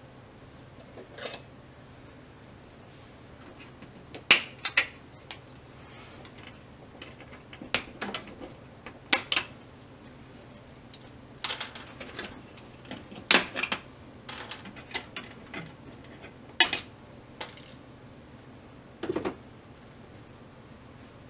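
Irregular sharp clicks and taps of hands handling plastic and metal parts inside an opened LCD TV during reassembly, about a dozen in all, the loudest about four seconds in and again near the middle.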